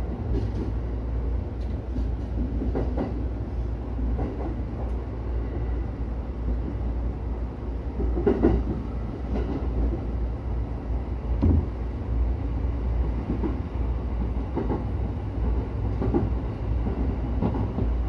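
JR E231-series electric train running along the track, heard from inside the driver's cab: a steady low rumble with irregular clacks from the wheels on the rails, the sharpest about eight and a half seconds in and again near eleven and a half seconds.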